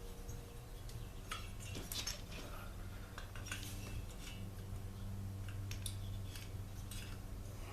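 Scattered light metallic clinks and taps of small engine parts being handled and fitted together by hand during two-stroke engine reassembly, over a steady low hum.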